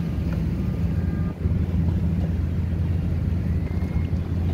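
Steady low rumble of motorboats running on open water, with wind buffeting the microphone.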